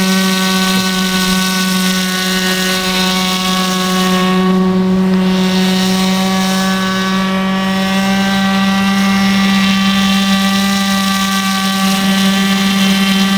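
Radio-controlled nitro model boat's glow-fuel engine running steadily as the boat speeds across the water, a loud buzzing whine that holds one pitch throughout.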